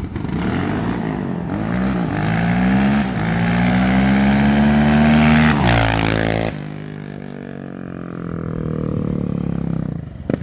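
Yamaha Raptor 700 ATV's single-cylinder engine at full throttle, pitch climbing, dipping at each gear shift and climbing again. Near 6 s a noisy rush cuts in and the engine is then heard quieter, rising once more.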